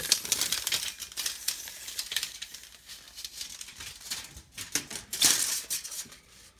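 Rustling and small clicks of a power cable and a tape measure being handled, with a louder rustle about five seconds in.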